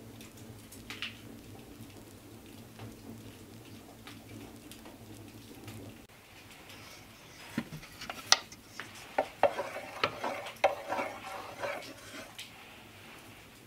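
A wooden spoon stirring thick dark syrup in a metal pail, with sticky, wet stirring sounds and a series of sharp clicks as the spoon knocks against the pail, loudest in the second half. Before that, a few seconds of faint low hum.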